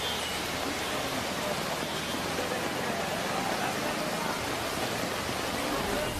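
Heavy rain falling steadily, an even, unbroken noise.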